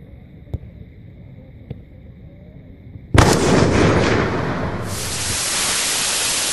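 A couple of faint taps, then about three seconds in a sudden loud explosion sound effect whose noise carries on for several seconds, turning hissier partway through.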